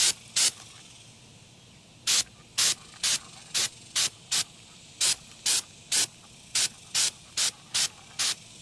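Aerosol can of Gorilla Waterproof Patch & Seal, a black rubber sealant, sprayed in short bursts of about two a second, with a pause of about a second and a half near the start.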